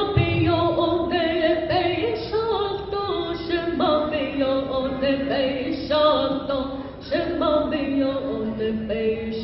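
A woman singing solo and unaccompanied into a microphone, holding long notes and gliding between pitches.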